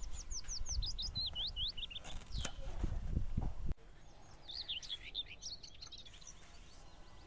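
Songbird singing: a quick run of descending chirps in the first two seconds, then another burst of chirps about halfway through. Under it in the first half come soft rustling and a few knocks as a knife trims fresh taro stalks; this stops abruptly about halfway.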